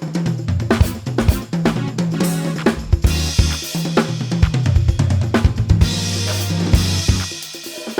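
Drum kit played fast and busy, with kick, snare, hi-hats and crashes on handmade Soultone cymbals, over a backing track with a sustained bass line. The cymbal wash swells twice, and the bass drops out shortly before the end.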